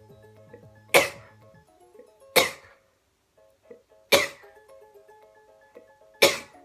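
A man sneezing four times in a row, one loud, sharp sneeze every one and a half to two seconds, over light background music.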